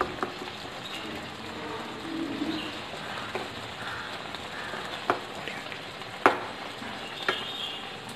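Plastic spatula stirring thick chicken masala in a nonstick kadai, with five or six sharp knocks of the spatula against the pan, over a steady low sizzle from the masala cooking on the burner.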